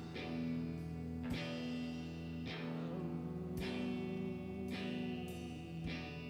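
Rock music with electric guitar, its chords struck about once a second over held notes.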